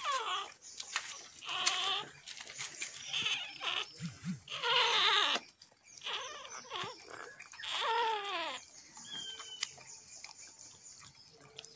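Dalmatian dogs whimpering during whelping: about five short, wavering cries that fall in pitch, the loudest about five seconds in.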